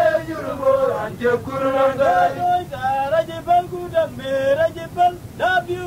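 A man singing a chant-like song solo, in held notes, with several phrases starting on an upward slide.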